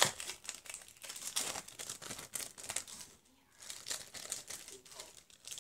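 Plastic packaging crinkling and rustling as it is handled by hand, in irregular crackles with a brief lull about three seconds in.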